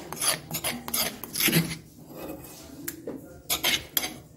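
A metal spoon scraping around a marble mortar, stirring green chili and coriander chutney: a run of short scraping strokes, with a quieter spell in the middle, then more strokes near the end.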